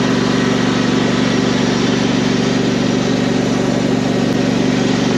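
Ride-on mower engine running steadily as the machine is driven along, a constant low engine note that does not change in pitch or loudness.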